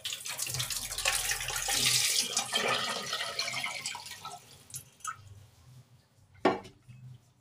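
Cloudy rinse water poured off a steel bowl of washed millet, splashing into the sink for about four seconds and tapering off. Near the end comes a single sharp knock.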